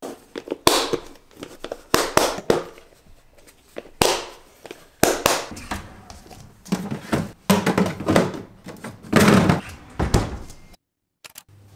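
Clip-lock plastic food container lids being snapped shut and the containers handled and set down, then a door moved, making a run of clicks, knocks and thuds, the heaviest about nine seconds in.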